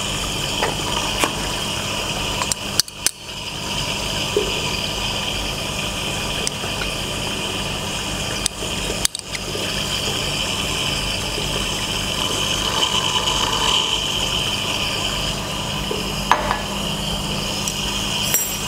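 Water aspirator on a sink tap running steadily, tap water rushing through it to draw vacuum on a Büchner funnel filtration. The rushing breaks off briefly twice, near 3 s and near 9 s.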